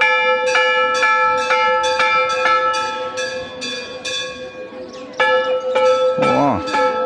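Brass temple bell rung by hand, struck about twice a second, each strike ringing on over a steady hum. The ringing stops briefly a little past the middle, then starts again.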